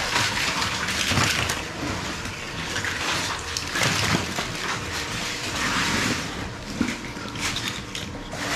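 Scallop shells clattering and scraping against each other and the worktable as they are handled, in an uneven run of swells.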